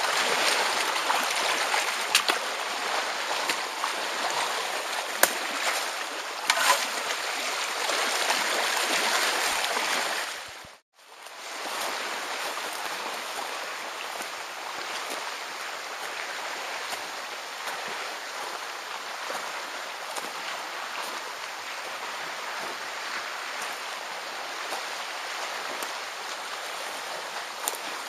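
Shallow water lapping and trickling among rocks beside a kayak, with a few light knocks. After an abrupt cut about eleven seconds in, a steady, quieter rushing hiss continues.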